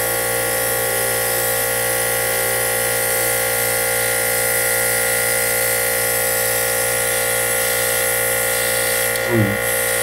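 The small electric compressor of a Revell Airbrush Basic Set running with a steady buzzing hum and a hiss of air while the airbrush sprays paint.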